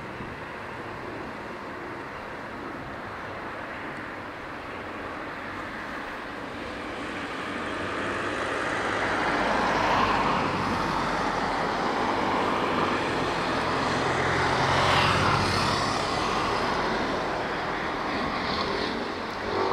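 A freight train's diesel locomotive pulling away under power, with a low engine drone and rail rumble that grow louder about halfway through.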